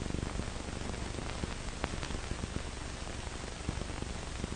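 Steady hiss of an old optical film soundtrack, with scattered crackles and pops.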